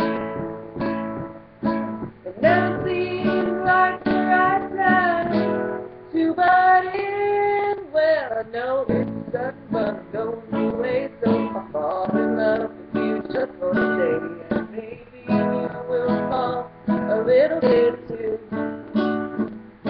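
A woman singing to her own strummed acoustic guitar, with a steady rhythmic strum under a bending sung melody.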